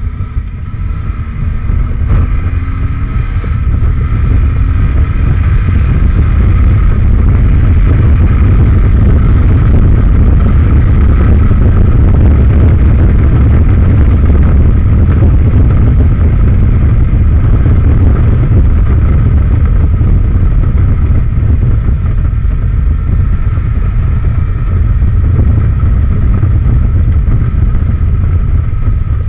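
Benelli TRK502X's parallel-twin engine picking up speed over the first few seconds, then running steadily at cruising speed under a dense rush of wind and road noise on the bike-mounted camera.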